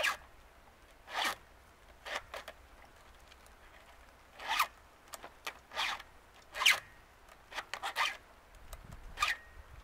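A file rasping across the cutter teeth of a Husqvarna 455 Rancher's chainsaw chain in short, separate strokes, roughly one a second, with a pause of about two seconds partway through.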